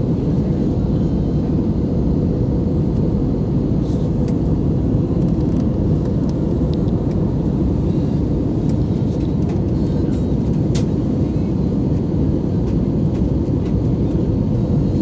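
Airplane engine noise: a steady, loud low rumble with a faint steady hum, unchanging throughout.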